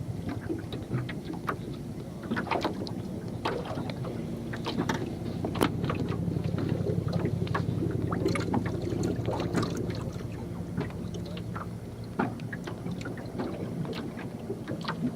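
Boat motor running steadily at low speed, with scattered short clicks and knocks over the hum.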